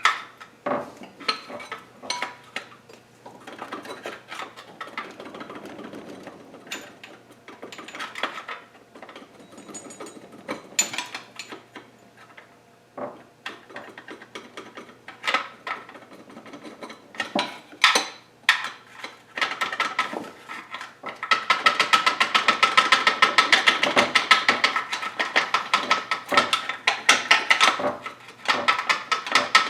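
Hand tools clinking and knocking against metal engine parts, then, about twenty seconds in, a ratchet wrench clicking rapidly and evenly for several seconds.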